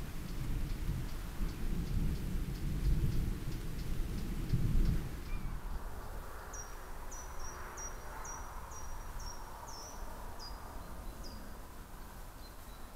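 Rain falling with a low rumble for about the first five seconds. Then the rain noise stops abruptly and a quick series of about ten high, falling chirps follows, roughly two a second.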